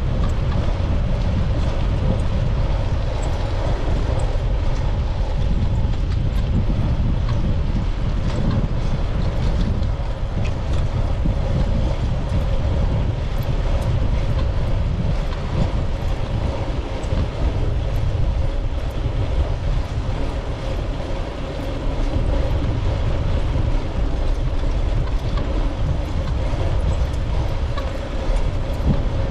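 Steady low rumble of wind buffeting a bike-mounted action camera's microphone while cycling, mixed with rolling tyre and road noise.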